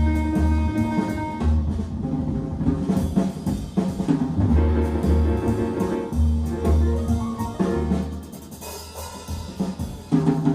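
Recorded music with a drum kit to the fore, heavy bass-drum and low tom hits under sustained pitched notes, played back through B&W 802 D3 floor-standing loudspeakers. It drops quieter about eight seconds in, then comes back loud near the end.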